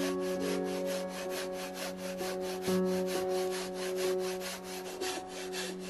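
Fine-toothed dozuki pull saw cutting wood in quick, even strokes, about five a second, over background music of sustained notes that change chord near the middle.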